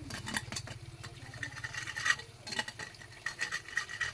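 Small metal trowel scraping dried moss off a concrete wall, in short, irregular scratching strokes. A low, steady hum like a running motor lies underneath.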